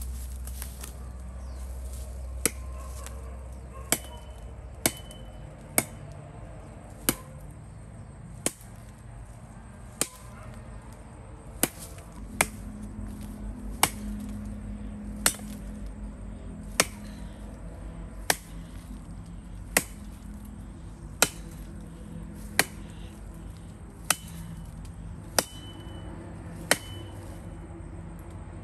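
Firewood being chopped: a blade striking wood in a steady rhythm, about one stroke every second and a half.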